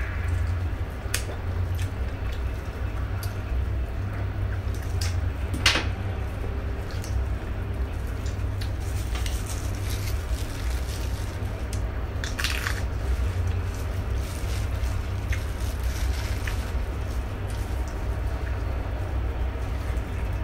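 Close-up eating sounds of someone chewing chicken adobo: wet chewing and lip smacks, with scattered short sharp clicks, over a steady low hum.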